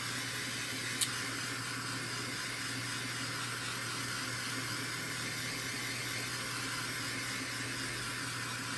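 Handheld butane torch burning with a steady hiss while heating heat-shrink tubing, with a small click about a second in.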